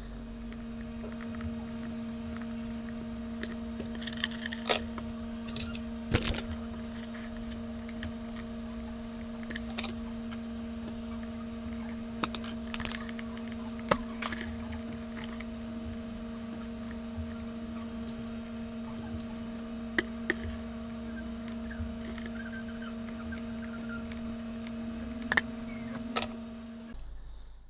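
Scattered clicks, taps and knocks of hand tools and small parts as output MOSFETs are refitted to a car amplifier's board, over a steady low hum. The sound cuts off abruptly near the end.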